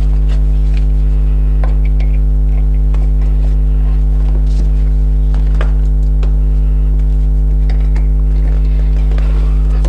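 Loud, steady low electrical hum with a stack of overtones, unchanging throughout. Faint scattered clicks and short rustles from hands working the fabric and fittings inside a hybrid kayak's cockpit.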